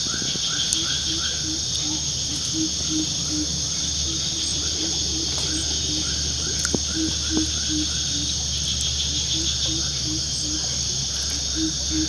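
Steady high-pitched chorus of insects buzzing, with a low note repeated two to three times a second and runs of short rising chirps over it.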